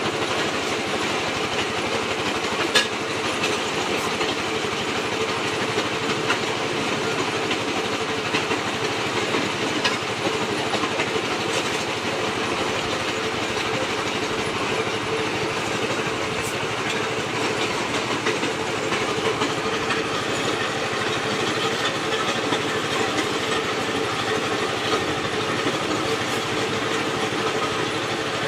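Brick-crushing machine running steadily, belt-driven by its engine, rattling and crunching broken brick into chips. A sharp crack stands out about three seconds in.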